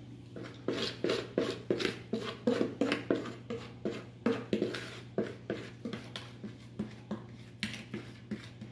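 A wooden spoon scraping and knocking against a mixing bowl as thick batter is worked out of it into a glass baking dish: a quick run of short strokes, about three a second, over a steady low hum.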